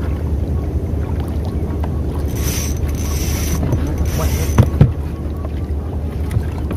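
Steady wind rumble on the microphone, with two spells of high buzzing from a spinning reel as the line is worked on a taut rod, about two and a half and four seconds in. Two sharp knocks against the wooden boat's hull follow just after, the loudest sounds.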